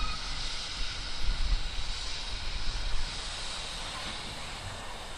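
GWR pannier tank steam locomotive and its coaches running past at close range: a steady rumbling roar that eases off after about three seconds.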